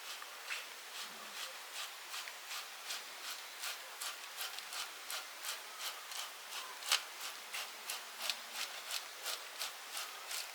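A utensil scraping and stirring food in a pan, in quick regular strokes about three a second, with one sharper scrape a little past the middle.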